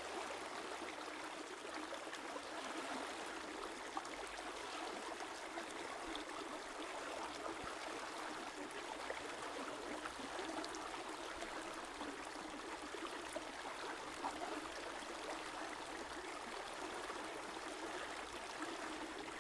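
A river flowing steadily, the even rush and trickle of running water with small splashes.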